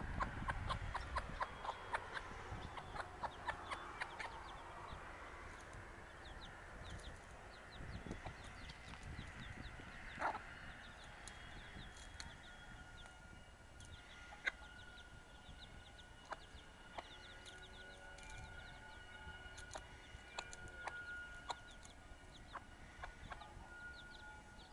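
A hen clucking and small chicks peeping as they forage: many short calls, thickest in the first few seconds, then sparser.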